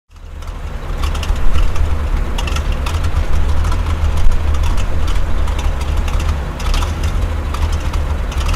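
Heavy tank engine running with a steady, deep rumble that fades in from silence over the first second, with irregular clicks and rattles over it.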